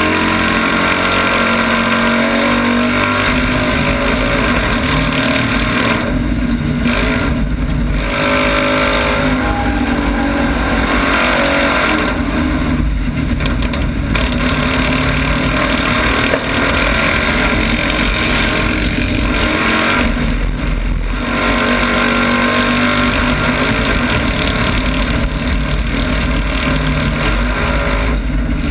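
Citroën 2CV cross racing car's air-cooled flat-twin engine running hard, heard from inside the open, caged cabin. Revs rise and fall, dropping off briefly several times as the driver lifts off and gets back on the throttle.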